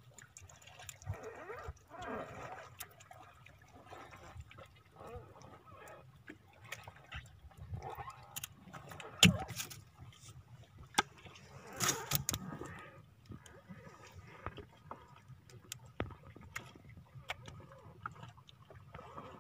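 Water splashing and dripping, with scattered knocks and clicks against a small boat's hull, as a hand line loaded with many small fish on a multi-hook rig is hauled up out of the sea. A sharp knock stands out about nine seconds in, and a brief rush of splashing comes around twelve seconds.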